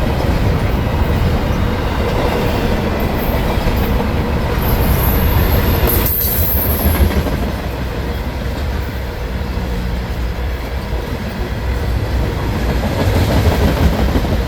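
CSX intermodal freight train's cars rolling past close by, a steady rumble and clatter of wheels on rail. A brief high wheel squeal rises over it about five seconds in.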